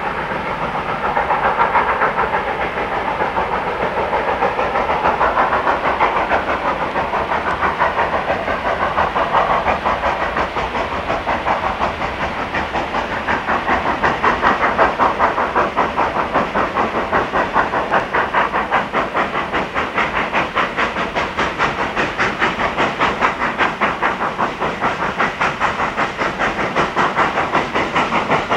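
Baldwin 2-8-2 steam locomotive working toward the listener, its exhaust chuffing in a quick, even beat over a steady hiss of steam. The beat grows sharper and more distinct as the engine draws nearer.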